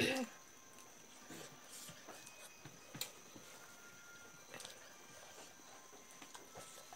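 Quiet hand-eating sounds: faint chewing and a few soft clicks of fingers and food on plates. A short voice-like sound comes right at the start.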